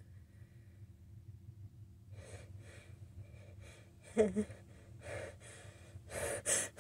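A person with a head cold breathing in a sneeze build-up: a run of quick short breaths, a louder catching gasp about four seconds in, then sharper gasping inhales near the end as the sneeze comes on.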